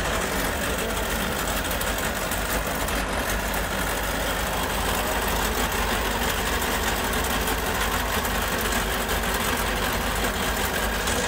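Speedboat's inboard engine idling steadily.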